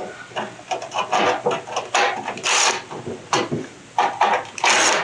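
Hand-tool work on a generator's sheet-metal paneling: irregular clanks, rattles and short scrapes, with two longer scraping sounds about halfway through and near the end.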